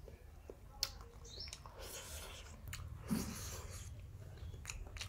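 A person chewing a mouthful of fried noodle-and-egg omelette, with a metal spoon clicking and scraping as it scoops more from the plate. A few sharp clicks, the loudest about a second in.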